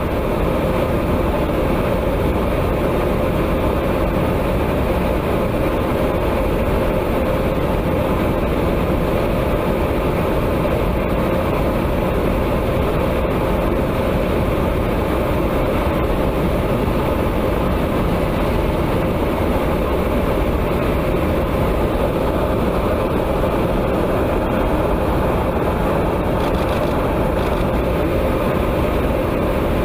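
Steady noise of an aircraft in flight, engines and rushing air, with a constant mid-pitched hum that does not change.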